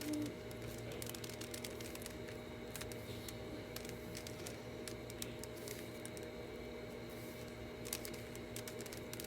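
Rubik's Cube faces being turned by hand, giving scattered faint plastic clicks over a steady low hum.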